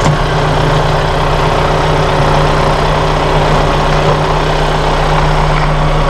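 A Massey Ferguson 1700E-series compact tractor's diesel engine running steadily, heard from inside the cab.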